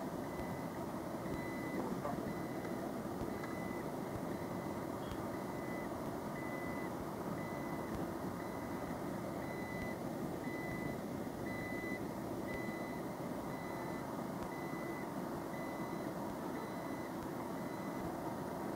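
A vehicle's reversing alarm beeping about once a second, a high steady tone, over a continuous background hubbub of traffic and crowd.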